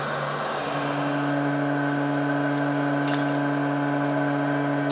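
Handheld heat gun running steadily: a fan-motor hum under a rush of blown air. One small click about three seconds in.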